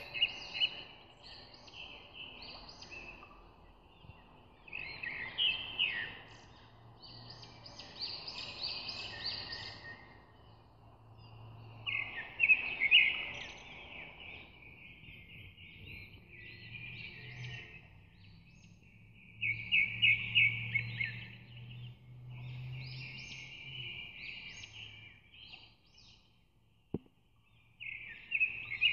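Birds chirping and trilling in short bursts every few seconds, over a faint low hum.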